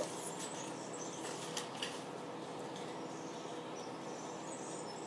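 Paper and cardboard being handled: a few short rustles and taps in the first two seconds as a booklet is pulled from a cardboard box, then only faint steady room noise while it is read.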